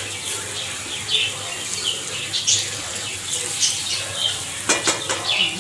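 Spiced minced meat frying in oil in a steel karahi, sizzling, while a spatula stirs and scrapes against the pan in repeated strokes, with two sharper knocks near the end. This is the bhuna stage, the spices being fried into the keema.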